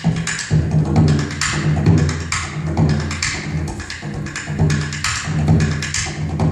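Irish traditional band playing a lively tune: piano accordion and fiddle carrying the melody over a steady, driving bodhrán beat.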